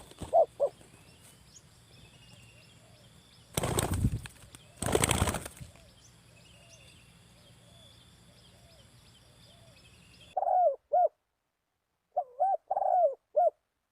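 Spotted dove cooing in short rounded notes: two near the start, then a run of coos near the end. About four and five seconds in come two loud rustling bursts, and fainter coos and insect trilling sit underneath until a sudden cut about ten seconds in.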